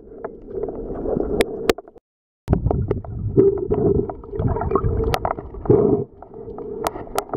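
Water heard underwater as swimmers move close by: a muffled churning and gurgling rumble with scattered sharp clicks. It drops out briefly about two seconds in.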